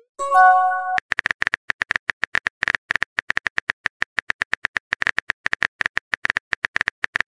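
Rapid keyboard tap clicks from a texting app's typing sound effect, about eight a second and very even. In the first second they are preceded by a short message chime of several steady tones.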